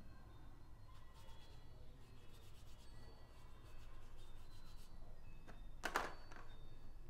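Faint rubbing strokes of a paintbrush on paper, with one brief, louder scrape about six seconds in.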